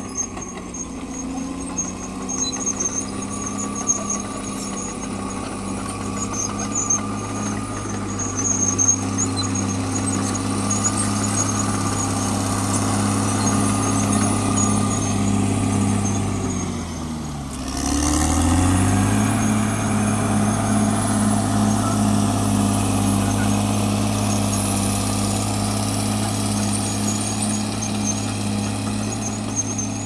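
Caterpillar D6R XL bulldozer's diesel engine running steadily while it works, with a thin high squeal and a few sharp knocks in the first half. A little past halfway the engine note dips and then comes back up over about two seconds.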